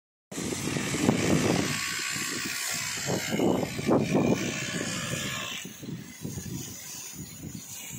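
Wind buffeting the microphone in irregular gusts, over a steady hiss that fades about two-thirds of the way through.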